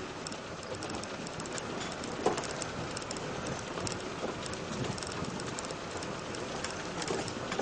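Off-road vehicle driving along a rough, rutted dirt track: a steady ride noise with many small rattles and knocks, and a louder knock about two seconds in.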